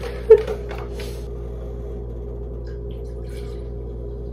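A single sharp knock about a third of a second in, over a steady low hum; near the end, faint pouring as half-and-half runs from its carton into a measuring cup.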